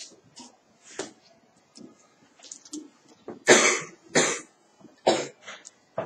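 A person coughing: a few short, harsh coughs about three to five seconds in, the first the loudest, with faint small clicks and rustles before them.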